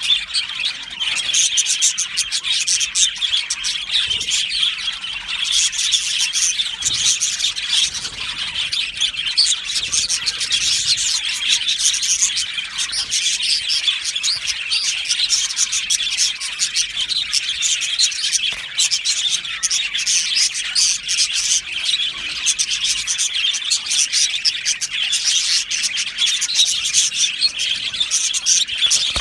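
A flock of budgerigars chirping together: a continuous chatter of many overlapping calls.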